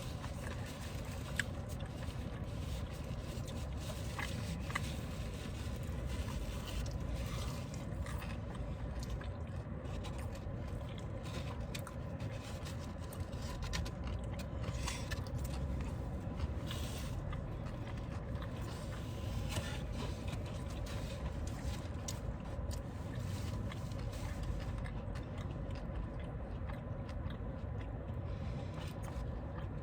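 People eating fried chicken: chewing and small scrapes and clicks of food and packaging being handled, over a steady low background rumble.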